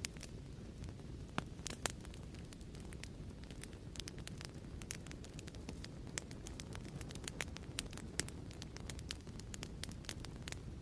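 Fireplace ambience: a wood fire crackling with irregular sharp pops over a steady low rumble.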